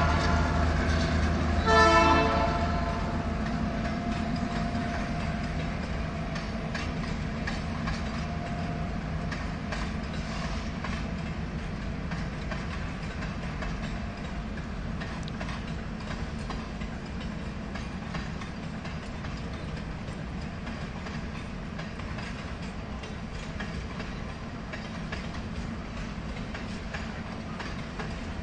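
The GR12W diesel locomotives' horn ends a blast and gives one more short blast about two seconds in, then a steady low rumble of empty freight wagons rolling past, with wheels clicking over the rail joints.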